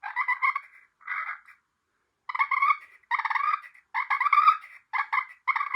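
Push-pull turkey call worked by pulling to make hen turkey purrs: about seven short rolling rattles with brief gaps, and a longer pause after the second.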